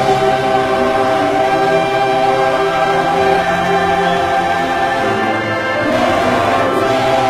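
Vocal ensemble singing a gospel song with orchestral accompaniment, holding long sustained chords and moving up to a new chord about six seconds in.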